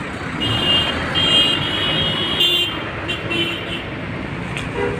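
A coach's multi-tone horn sounds in three short blasts over the first three seconds, over the steady running of the coach's engine and tyre noise as it drives past.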